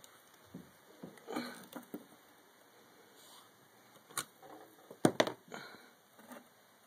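Handling noise around a soldering iron's lead-melting pot: a few scattered clicks and light knocks, the sharpest pair about five seconds in.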